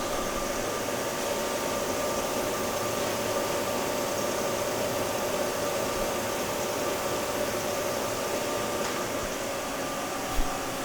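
2003 Haas TM-1 CNC vertical mill running through a demonstration cycle: a steady whirring hum with a few steady tones over it, and one short knock near the end.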